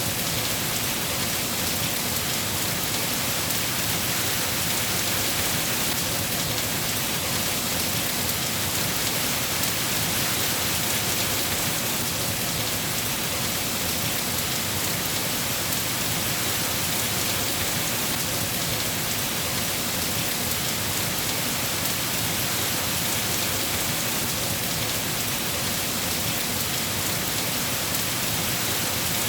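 Steady heavy rain: a dense, even hiss of falling rain and drops on surfaces, with no change in strength.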